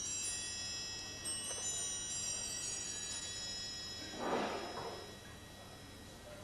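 A metallic chime ringing out: several high bell-like tones sounding together and slowly fading over about five seconds, with a short rustle about four seconds in.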